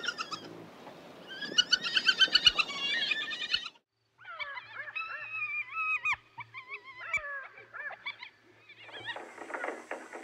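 Hyena calls: a run of rapid, high, stuttering giggles for about four seconds, a brief break, then wavering, sliding calls. A fast rattling rhythm comes in near the end.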